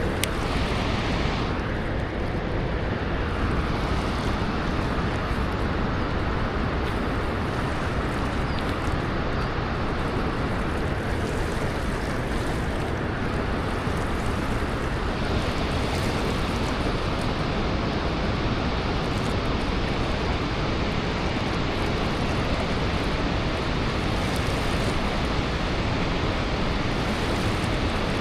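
Steady rush of water pouring over a dam spillway, an even, unbroken noise.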